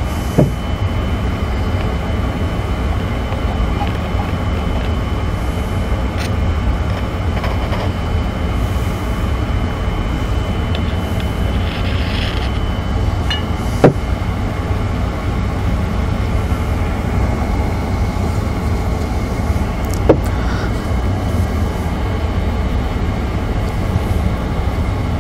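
Steady low shop rumble with a few sharp metal clicks and knocks as a pump oil can and the mill's cast-iron saddle are handled: one just after the start, the loudest about halfway through, and another about four-fifths of the way through.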